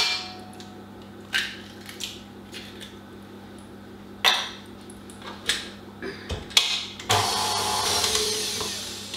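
A few knocks and clinks of a metal mixing bowl and beater being handled. About seven seconds in, a KitchenAid stand mixer starts up and runs steadily, beating egg into creamed butter and sugar.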